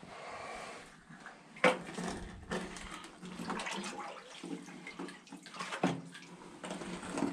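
Deep floodwater sloshing and splashing as a person wades slowly through it. There are two sharp knocks, about a second and a half in and near six seconds.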